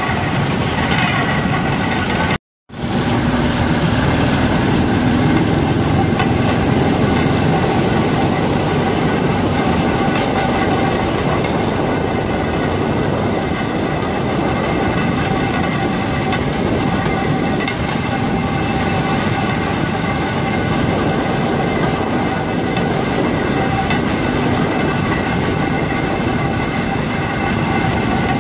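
Motor draisine running along a narrow-gauge track: a steady engine drone with the wheels clattering over the rails. The sound cuts out for a split second about two and a half seconds in.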